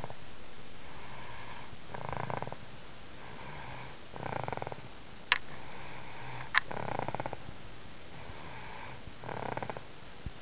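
A baby snoring steadily, with a louder snore about every two and a half seconds and softer breaths between. Two sharp clicks about halfway through.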